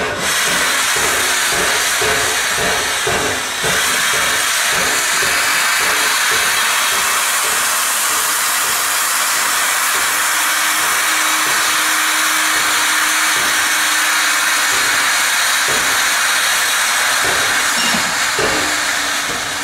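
Eb 3/5 9 steam locomotive blowing steam from its cylinder drain cocks while standing: a loud, steady hiss that starts abruptly and eases off near the end. The drain cocks are clearing condensed water from the cylinders.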